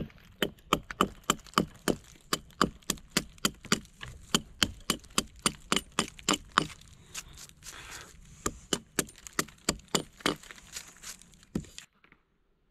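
Hatchet chopping into a wooden log: quick, regular blows about three a second, with a short pause about two-thirds through, stopping abruptly near the end.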